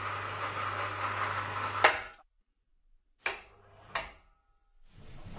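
Electric cable winch of a mortuary body lift running with a steady hum as it winds its cable, stopping with a clunk about two seconds in. Then near silence, broken by two sharp clicks.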